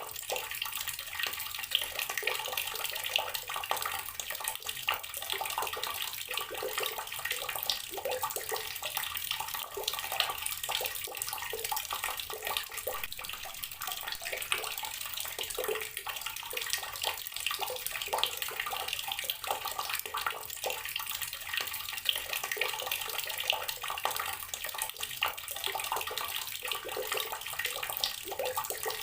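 Water tap running steadily, its stream splashing continuously onto a hard surface below.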